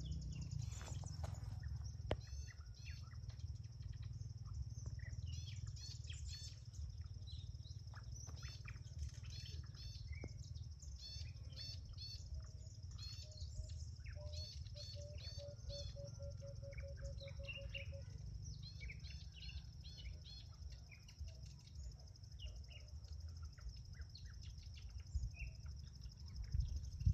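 Wild birds chirping and calling, with many short high chirps and trills. About halfway through, a run of rapid lower notes lasts a few seconds. A steady low rumble sits underneath throughout.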